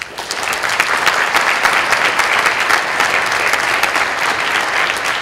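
An audience applauding at the end of a talk: many hands clapping at once in a dense, even patter that starts suddenly and holds steady.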